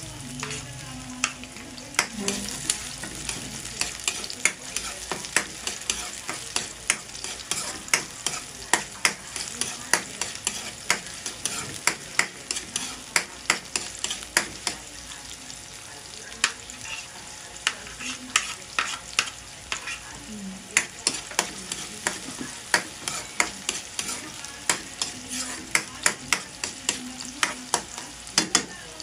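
Chopped red onion sizzling in hot oil in a wok while a spatula stirs it around. Many sharp taps and scrapes of the spatula against the pan come through the steady sizzle.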